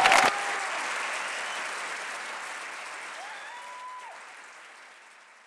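Applause from a concert audience and choir. The last of the music cuts off just after the start, and the clapping then fades out steadily, with a brief whistle partway through.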